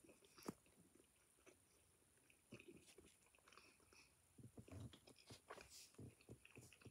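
Faint mouth sounds of a person chewing chocolate close to the microphone: soft, irregular smacks and clicks, more frequent in the second half.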